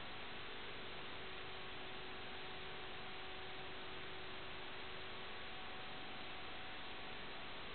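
Steady, even static hiss with a faint constant hum on the audio track of an analog FPV video recording, with no audible motor or propeller sound.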